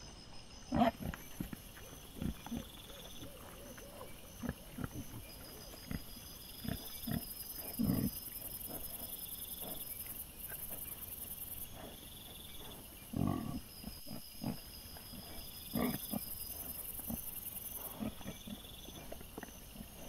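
Wild boar, a sow with striped piglets, grunting and snuffling in short separate bursts while they feed, the loudest about a second in, around the middle and twice in the second half. A steady high pulsing chirr runs underneath.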